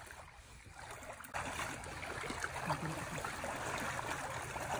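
River water sloshing and splashing around people wading through it. The noise gets suddenly louder and denser about a second in.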